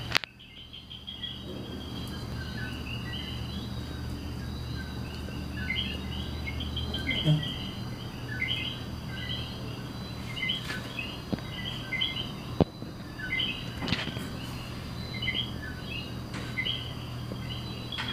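Small birds chirping in short, repeated calls over a steady low hum, with a few sharp clicks or knocks.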